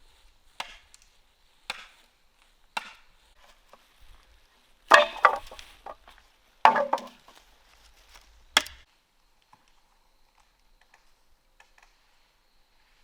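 A series of six chopping strikes about a second or two apart. The last three are heavier than the first three, then the chopping stops.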